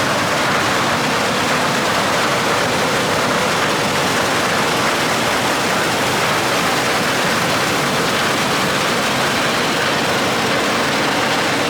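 New Holland combine harvester running close by, a loud, steady, even noise.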